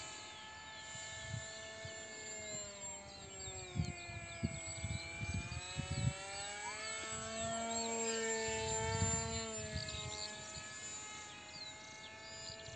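Whine of an RC foam jet's 2217 2200kV brushless motor and 6×5.3" pusher propeller in flight. The pitch slides slowly down over the first few seconds and back up later as the plane passes and manoeuvres.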